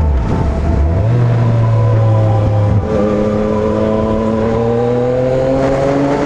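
Motorcycle engine heard on board while riding, with wind noise over the microphone. The revs drop at a gear change about three seconds in, then climb steadily as the bike accelerates.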